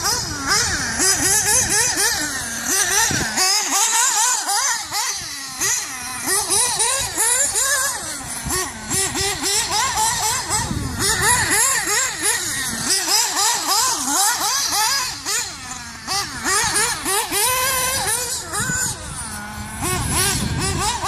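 Mugen MBX6 1/8-scale off-road RC buggy being driven, its motor revving up and down constantly over a steady high hiss.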